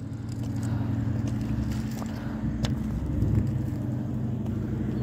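Road traffic: motor vehicle engines running in a steady low rumble that swells slightly about three seconds in, with a single faint click midway.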